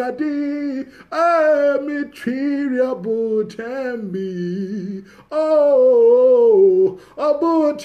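A woman singing a slow worship melody alone, in long held notes that waver in pitch, with short breaks between phrases.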